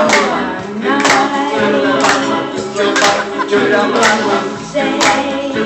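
A young male voice singing a 1950s-style song into a microphone over instrumental backing, with a steady drum beat about once a second.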